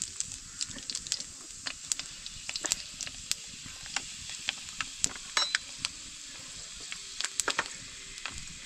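Pork frying in a pan for a curry: a steady sizzle with scattered crackles and pops.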